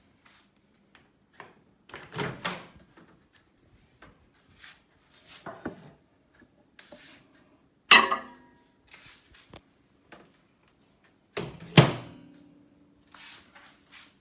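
Built-in microwave oven being handled: scattered knocks and clunks, with two sharp clunks, about halfway through and again near the end, that ring on briefly, like its door being shut.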